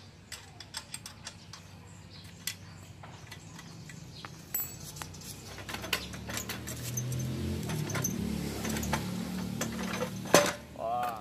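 A wrench clicks and clinks against the bolts of a motorcycle's exhaust muffler as it is taken off, with a series of short metal clicks. A low drone builds up in the second half, and one sharp knock comes near the end.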